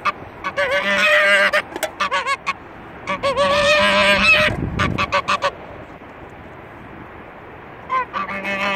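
White domestic goose honking: bouts of loud, wavering, nasal calls, about a second in and again about three seconds in, then a pause before another bout starts near the end.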